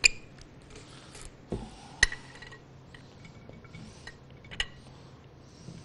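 A serving spoon clinking and scraping against a dish as pasta salad is spooned into it: a sharp clink right at the start, another about two seconds in and one more past four seconds, with soft scraping between.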